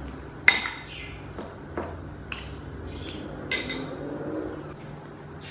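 A steel spoon clinking against a ceramic bowl as raw chicken pieces are stirred through their marinade: a few sharp, scattered clinks, over a faint low hum.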